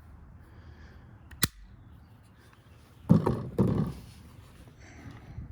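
Metal parts of an Arsenal SAM5 AK rifle handled: a single sharp click about a second and a half in, then two louder metallic clacks about three seconds in.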